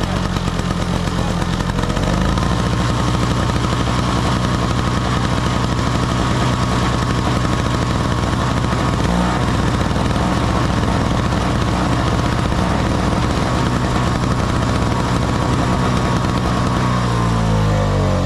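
Small two-stroke MTD Yard Machine snowblower engine running on its own, now that fuel flows through its cleaned carburetor jet. Its speed shifts about two seconds in and again near the end.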